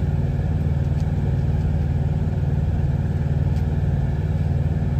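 A semi-truck's diesel engine idling, a steady deep hum heard inside the cab. A couple of faint clicks come from metal tongs in a frying pan.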